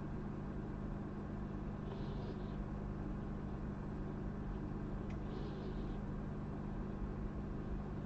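Steady low electrical hum over background noise, with a faint soft hiss recurring about every three seconds.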